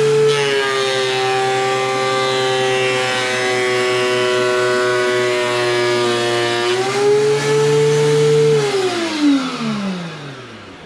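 DeWalt benchtop thickness planer running and taking a light pass on a board: its motor whine drops in pitch about half a second in as the cutter head takes load, holds steady, then rises again near 7 s as the board comes free. About two seconds later the motor is switched off and winds down in a falling whine.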